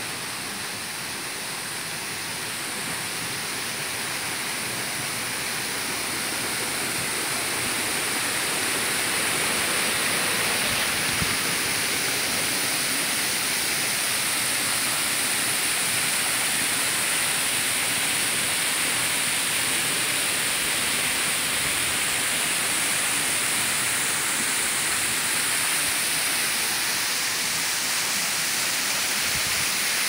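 Waterfall rushing: a steady hiss of falling water that grows louder over the first ten seconds or so as the falls are approached, then holds steady.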